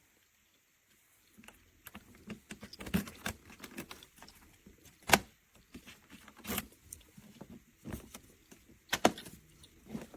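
Irregular clicks, knocks and light rattles of objects being handled, beginning about a second in; the sharpest knocks come about five and nine seconds in.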